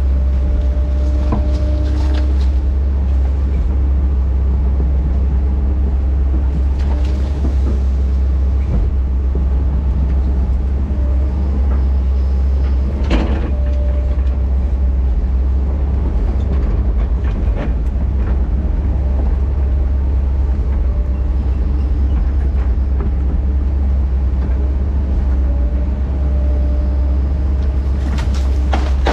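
Heavy earthmoving machine's diesel engine running steadily under load, with a few metallic clanks from the machine working.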